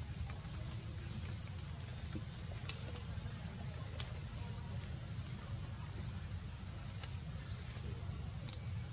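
Steady high-pitched insect drone over a low rumble, with a few faint clicks.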